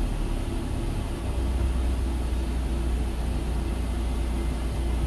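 Steady road and engine rumble heard inside the cabin of a moving passenger van.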